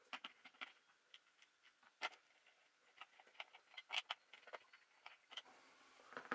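Faint, irregular clicks and light knocks of a plastic RC truggy's parts and a wheel being handled and fitted onto a hub, with a couple of sharper clicks about two and four seconds in.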